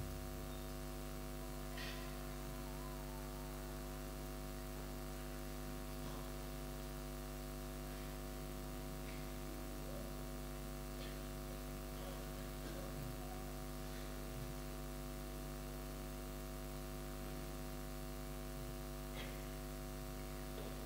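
Steady electrical mains hum, a low buzz with many evenly spaced overtones, likely from the hall's sound system between speakers. A few faint, brief sounds from the hall rise slightly above it.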